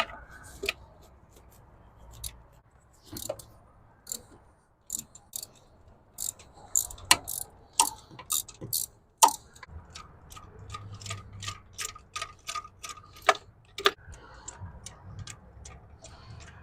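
Hand ratchet clicking in short runs while a spark plug is worked, with scattered sharp metal tool clicks. Near the middle there is a quick even run of clicks, about four or five a second.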